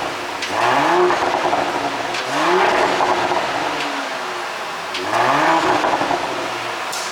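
2022 Porsche Cayenne 3.0-litre turbocharged V6 revved three times. Each rev rises in pitch and falls away into crackling and popping from the exhaust, the sign of an ECU tune set up for exhaust pops.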